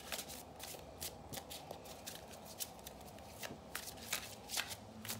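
A tarot deck being shuffled by hand: a run of quick, irregular card rustles and flicks, several a second.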